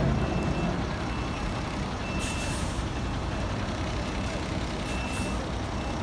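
Steady low rumble with a high electronic warning beep sounding on and off, like a vehicle's reversing alarm, and a couple of short hissing bursts about two and five seconds in.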